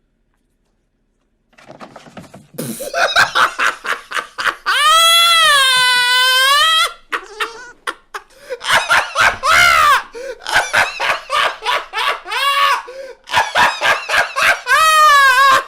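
A man's hysterical laughter: rapid bursts of laughing that begin after about a second and a half of silence. Near the middle comes a long, high-pitched squeal of laughter held for about two seconds, then more fast bursts.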